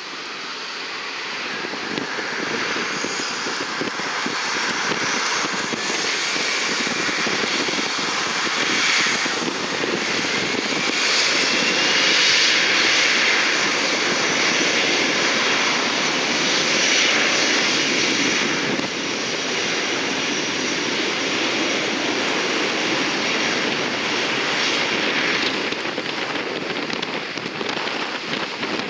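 Jet aircraft engines passing by, a dense rushing noise with a high whine that builds to its loudest about twelve seconds in, then eases off slowly.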